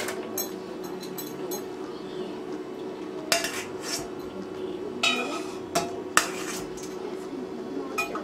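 A metal spoon clinking against a steel pot and a steel plate as boiled potatoes are scooped out and set down on the plate: a string of separate clinks and knocks, the loudest about three seconds in and around five to six seconds in, over a faint steady hum.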